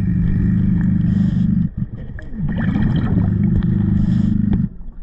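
A diver breathing through a regulator underwater: two long, rumbling exhalations of bubbles with a gurgling pause between them.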